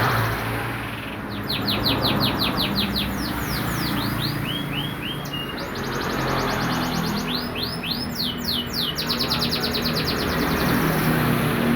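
Domestic canary singing: long runs of rapid, evenly repeated trill notes, broken by fast downward-sweeping notes and short whistles, phrase after phrase. A steady low hum runs underneath.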